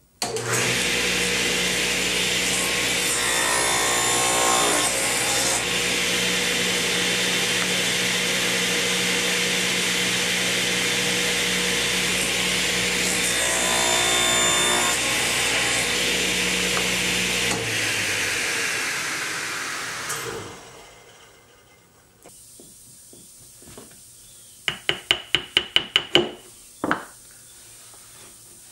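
Table saw starts up and runs at speed, cutting through a small wooden piece twice, the blade noise rising during each pass. It is then switched off and winds down over about three seconds. After it stops, a quick run of about eight light taps and one more comes from chisel work on a small wooden part.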